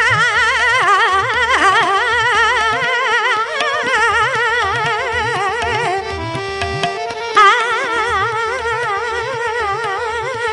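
Indian music: a melody with heavy vibrato over a steady low drum beat. Around the middle, the vibrato gives way to a short run of quick, evenly held notes, and then the wavering melody comes back loudly.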